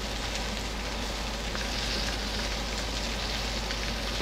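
Lamb chops sizzling on a hot cast-iron grill pan, a steady sizzle with faint crackles, as oily marinade is brushed over them.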